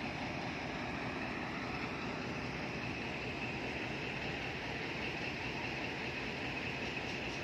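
Pakistan Railways ZCU-20 diesel locomotive 6414 running, a steady engine rumble under an even hiss.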